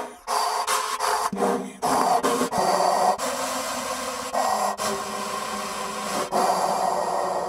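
Experimental free-improvisation electroacoustic music: rasping, scraping noise textures that are cut off and switched abruptly several times, like digitally edited fragments.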